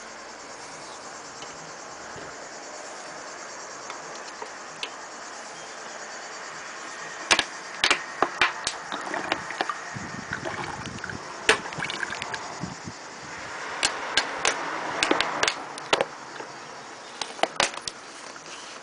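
A plastic bottle of cooking oil handled and poured into a small metal measuring cup. From about seven seconds in, the thin plastic bottle crackles and the cup knocks in a string of sharp clicks, over a steady faint background hiss.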